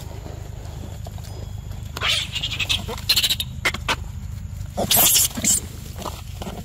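Long-tailed macaques calling: a cluster of harsh squeals about two seconds in, then a louder, shriller burst about five seconds in.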